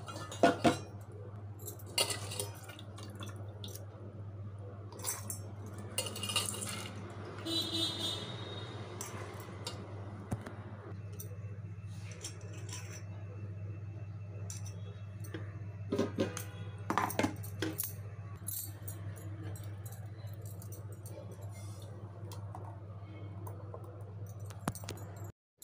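Steel kitchenware clinking and knocking now and then as a stainless mixer-grinder jar, its lid and bowls are handled, over a steady low hum.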